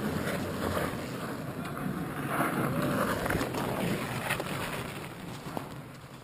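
Wind rushing over the microphone, with a fat bike rolling past on the snowy trail; the noise is loudest about two to three seconds in and fades toward the end.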